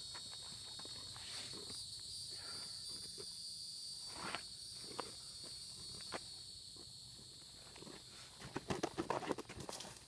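A steady high chorus of insects with a few scattered footsteps on dirt and gravel, then a quick run of louder shuffling steps near the end.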